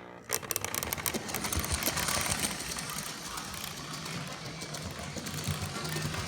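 Lionel 8204 model train locomotive running, its motor humming under a fast, dense clicking rattle from the mechanism: the weird noise the owner is showing. It starts about a third of a second in.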